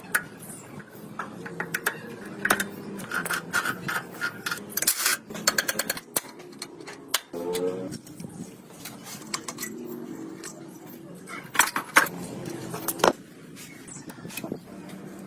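A series of sharp clicks and knocks, irregular and clustered, with faint voices underneath and a brief rising squeak about halfway through.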